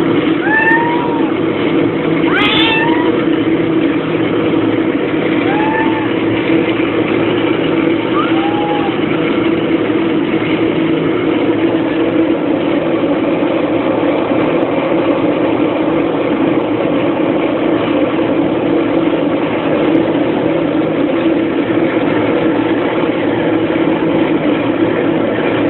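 A cat meowing four times in the first several seconds, short up-and-down calls, over a loud steady mechanical drone like a running engine that carries on alone afterwards.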